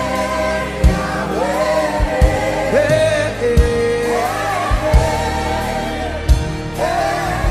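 Gospel worship song: long held sung notes with a slight waver, no clear words, over a band with low drum hits every second or so.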